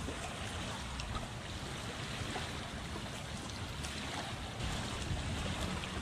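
Steady wind rumbling on the microphone over small waves washing at the shoreline, with a few faint ticks and rustles of a cast net being lifted and shaken out.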